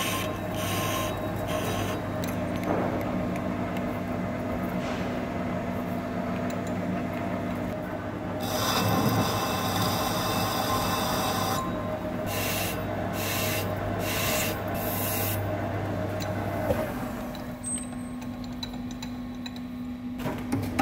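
Hafco TM-26120G centre lathe turning a metal tube with a carbide insert: the steady hum of the lathe under the scraping hiss of the cut as chips curl off, the cutting noise coming and going in passes. The low motor hum stops about three quarters of the way through.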